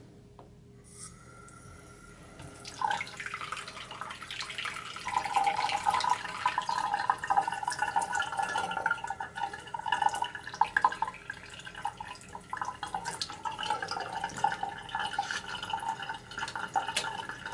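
Bathroom sink faucet turned on, tap water running into the basin and splashing over hands being rinsed under the stream. The flow starts about a second in and grows fuller a few seconds later.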